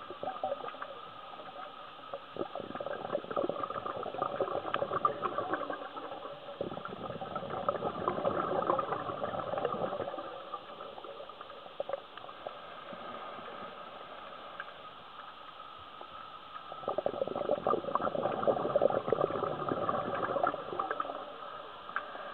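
Scuba diver's exhaled bubbles from the regulator, heard underwater as bubbling, crackling bursts with quieter stretches between breaths.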